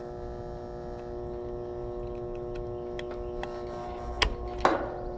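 A steady electrical hum, with a few light clicks and a short scrape near the end as wire terminals are pushed onto the replacement HVAC run capacitor's common terminal.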